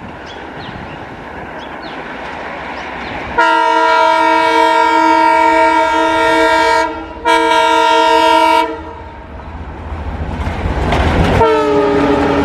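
ALCo WDM-3D diesel locomotive's horn, sounding several pitches at once, over the growing rumble of the approaching train. It gives two long blasts with a short break between them, then after a pause sounds again with its pitch falling as the locomotive goes by.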